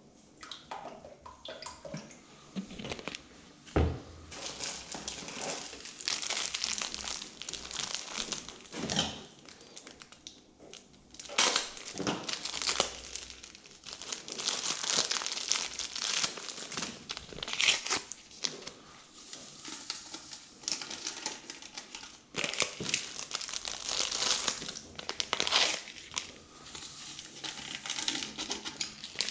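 Packaging being handled: repeated crinkling and crumpling with many small crackles, and a single knock about four seconds in.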